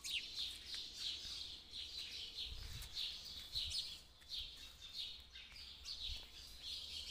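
Small birds chirping: a steady run of short, high chirps, a few each second.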